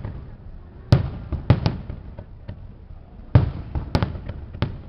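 Aerial firework shells bursting in a fireworks display: a string of sharp bangs, the loudest about a second in and again past three seconds, with a low rumbling echo between them.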